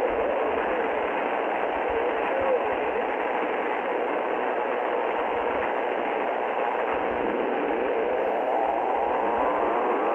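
Shortwave static hiss from an Icom IC-R30 receiver in USB mode on 6.955 MHz, with faint whistles drifting in pitch and rising near the end.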